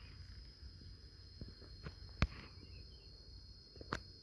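Steady high-pitched drone of insects, crickets or cicadas, with a few sharp knocks, the loudest about two seconds in and another near the end.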